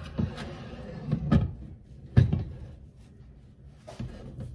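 A heavy pot with a glass lid being lifted off a glass stovetop and set down, giving about four knocks and clunks, the loudest about two seconds in.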